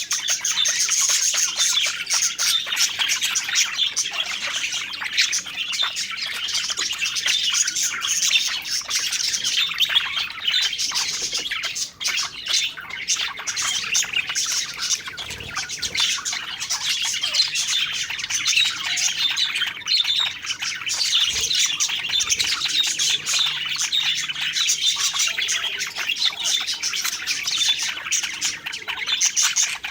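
Several budgerigars (parakeets) chattering and chirping without pause, a dense, overlapping warble of high chirps.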